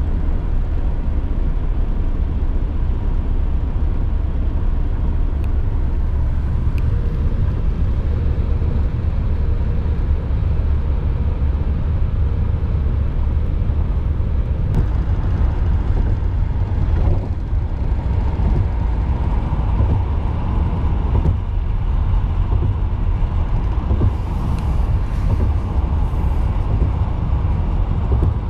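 Steady road and engine noise heard inside the cabin of a moving car, dominated by a deep, even rumble.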